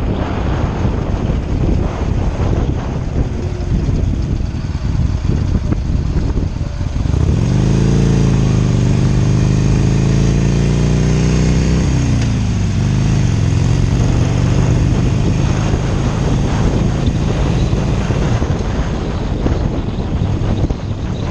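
Wind rushing over the microphone at highway speed on a 2017 Harley-Davidson Iron 883, with engine and road noise underneath. About a third of the way in, a loud engine note swells up, rises quickly in pitch, sinks slowly for about four seconds and then drops away.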